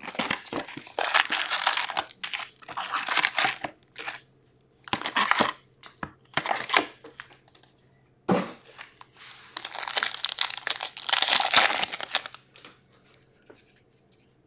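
Foil wrappers of hockey card packs crinkling as they are handled and torn open, in irregular bursts about a second long with short pauses between.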